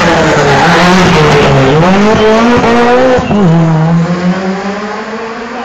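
Rally car engine at high revs passing close, its pitch dipping, climbing again, then dropping sharply at a gear change a little over three seconds in. The engine fades as the car drives away.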